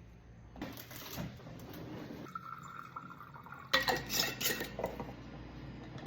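Metal milking pails and utensils being handled, clanking and clinking, with a loud run of clinks about four seconds in.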